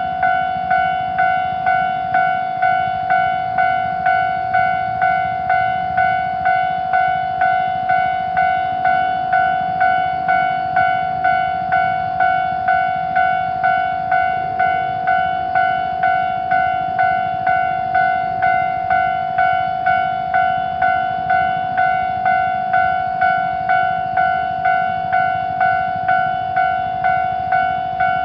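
Japanese railroad crossing's electronic warning bell ringing over and over, a bit under one and a half clanging strikes a second, each ringing on into the next, signalling that a train is approaching.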